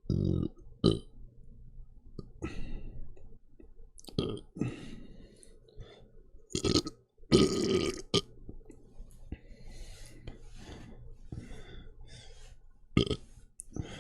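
A person burping deliberately: a series of thick, gurgly belches with quieter sounds between them. The longest and loudest lasts about a second, about seven seconds in.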